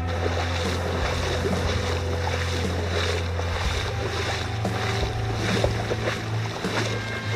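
Wind buffeting the microphone in a steady low rumble, with water splashing irregularly as several people wade through ankle-deep seawater on the mudflats.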